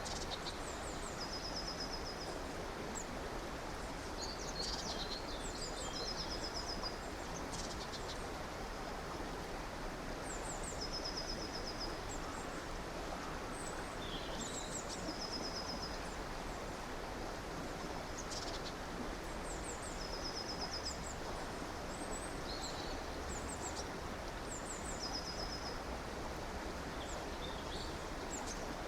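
A stream or river running steadily, with small birds calling over it: a short high trilled phrase repeated every four to five seconds, mixed with brief chirps.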